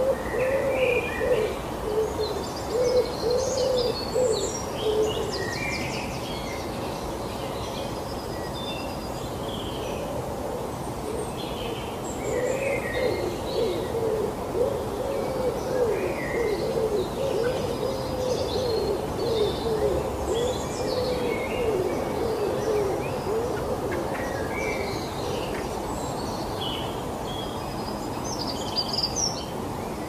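Birds calling: a low, quickly wavering warble in two stretches, a short one at the start and a longer one through the middle, with scattered high chirps above it.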